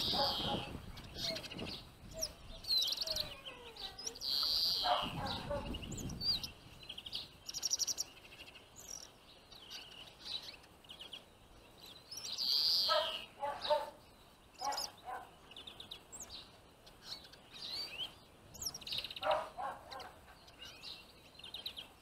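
Small finches twittering and calling: short high chirps and quick trills in scattered bursts through the whole stretch, with a few lower calls mixed in.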